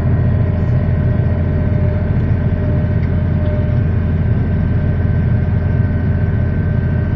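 Tractor engine running steadily, a dense low drone with a faint steady whine over it.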